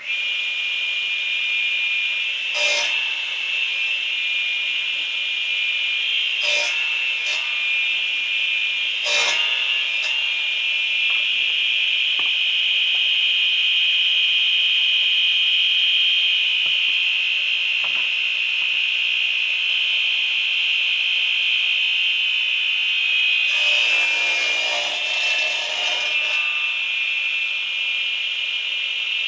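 Electric saw running with a steady high-pitched whine. It starts abruptly, has brief crackles a few times, and goes rougher for a couple of seconds near the end.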